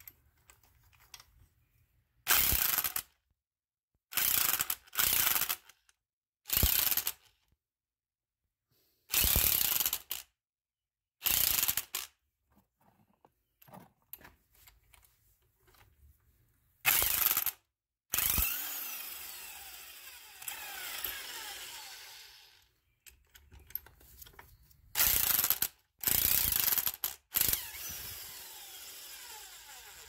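A power tool with a socket spins a spring compressor's threaded rods in about a dozen short bursts, letting out the compressed coil spring on a strut after its new top bearing has gone in. A little past halfway, one longer run fades out slowly over a few seconds.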